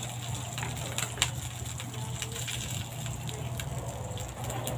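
Leftover oil from frying dried fish crackling in a hot wok on a gas burner, with scattered sharp pops over a steady low hum.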